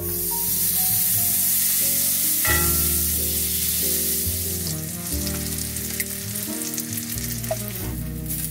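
Food sizzling in a hot frying pan. The sizzle starts suddenly, is loudest for the first few seconds, then thins out into scattered crackles. Background music plays underneath.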